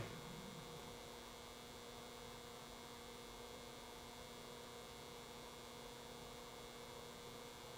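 Faint steady electrical mains hum over room tone, near silence; the putty work with the sculpting tool makes no audible sound.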